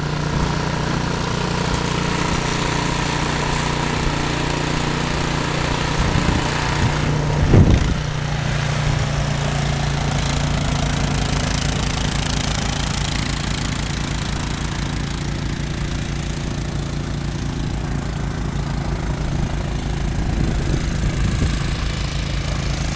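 Engine running steadily at a constant speed, with a brief loud bump about seven and a half seconds in.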